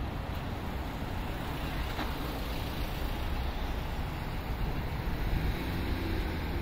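Steady city street traffic noise, a constant low rumble of passing vehicles.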